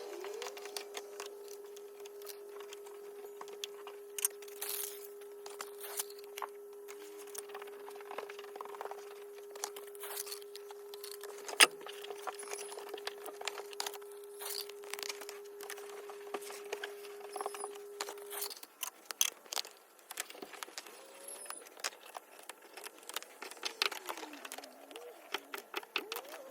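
Scattered clicks, taps and crinkling from hands-on work, with one sharper click near the middle. A steady hum runs under it and cuts off about two-thirds of the way through.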